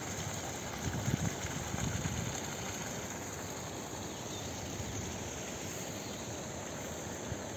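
Field ambience: insects chirping steadily over a soft, even rushing noise, with a short low rumble about a second in.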